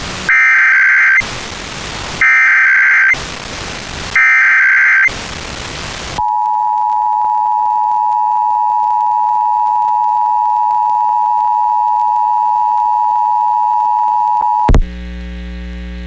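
Emergency Alert System Required Monthly Test on FM radio: three bursts of the warbling SAME digital header tones, separated by hiss, then the steady two-tone EAS attention signal held for about eight seconds. The attention signal cuts off with a click into a low mains hum.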